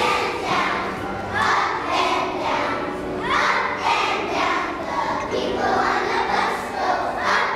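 A group of young children singing together in unison in phrases, with steady accompaniment tones underneath.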